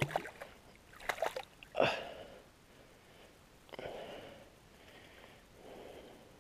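Shallow lake water splashing and sloshing as a hand works in it at the reedy bank: a few sharp splashes in the first two seconds, then softer swishes.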